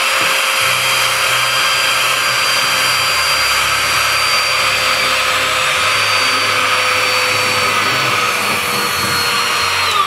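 Mini cordless handheld vacuum cleaner running steadily with a high motor whine while sucking up loose tea leaves. It is switched off at the end, and the whine falls away as the motor spins down.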